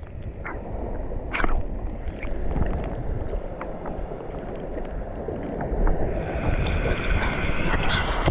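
Shallow water sloshing and gurgling around a GoPro held at the waterline, muffled as the camera dips under, with scattered small clicks and pops.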